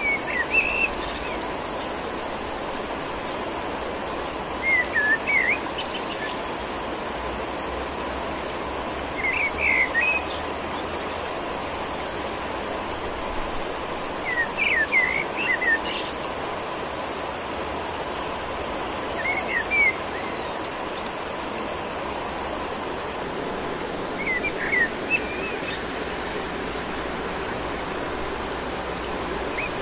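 Short bird call phrases, about seven, each repeating about every five seconds over a steady outdoor hiss with a faint high-pitched whine.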